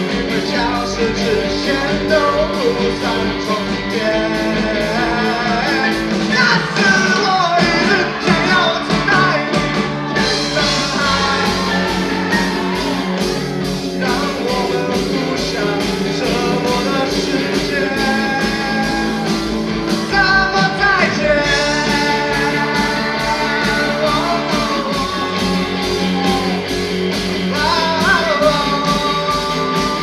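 A live rock band playing, with a male singer over electric guitars, keyboard, bass and drums.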